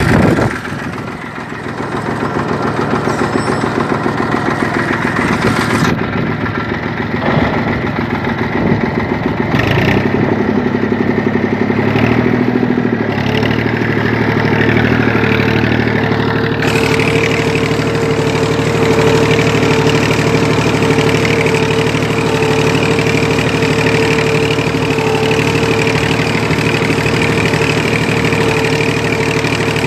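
Tafe 42 DI tractor's diesel engine running, its note shifting up about a third of the way in and then holding a steady pitch.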